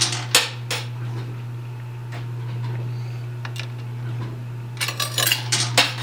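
Quarters clinking and dropping in a coin pusher arcade machine: scattered sharp metallic clinks, with a quick cluster about five seconds in, over the machine's steady low hum.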